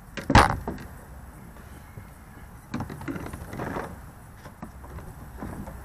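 A sharp knock about half a second in, then irregular rattling and clattering of fishing gear being handled in a plastic sit-on-top kayak.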